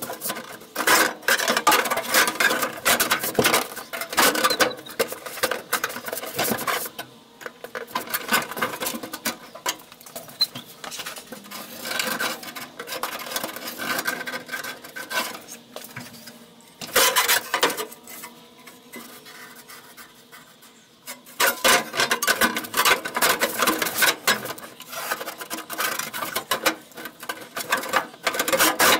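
Steel floor patch panel being worked into place on a 1966 Ford F100's cab floor: sheet metal scraping, rubbing and rattling against sheet metal in irregular spells, with a quieter stretch about two thirds of the way in.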